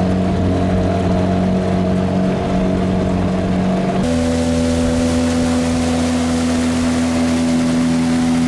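Outboard motor on a small aluminium boat (tinny) running steadily under way; about halfway through its note steps up to a higher, steady pitch.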